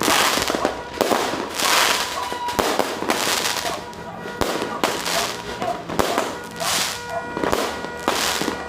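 Many fireworks going off at once: a steady string of sharp bangs mixed with surges of crackling.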